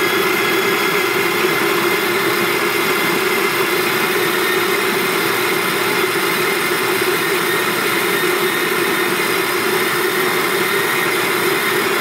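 Bodum Bistro electric conical burr coffee grinder running steadily, grinding coffee beans: an even motor whir with a steady hum.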